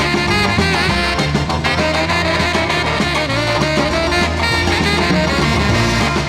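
Instrumental 1960s orchestra dance record playing, with a steady beat and no vocals.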